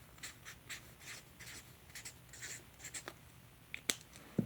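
Someone writing by hand: a run of short, scratchy pen strokes, then a sharp click and a low knock near the end.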